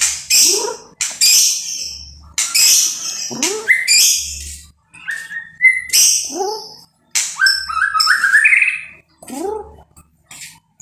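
White-rumped shama singing loud, varied phrases of whistles, rapid chirps and sliding notes, with short pauses between phrases.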